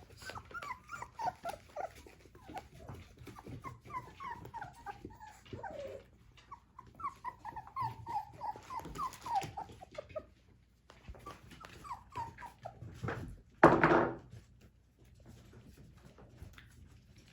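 Four-week-old puppies whimpering: rapid, short, high squeaks, several a second, over the first ten seconds. A single louder, short burst comes about 14 s in.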